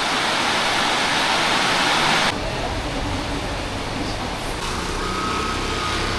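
A steady, loud hiss that cuts off abruptly a little over two seconds in, giving way to a steady low rumble.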